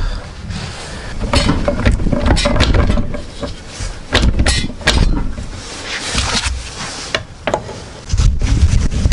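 Pry bar levering at the seam of a manual transmission case, prying the two halves apart: irregular metal clinks, knocks and scrapes.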